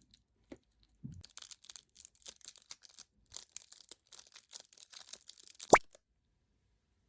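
Crinkly plastic packaging being handled and opened, with a rapid run of small crackles and clicks. There is a dull knock about a second in and one sharp, loud click just before it stops.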